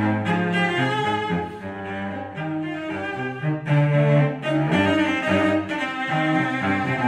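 Two cellos playing a tango duet in bowed notes, a lower part moving under a higher one.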